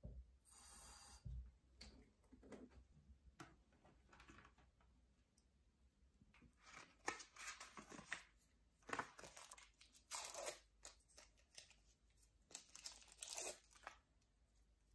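Adhesive plasters being handled: the cardboard Elastoplast box opened and the paper wrappers torn and peeled, heard as a run of short papery rips and crinkles that come thickest in the second half. A brief hiss near the start.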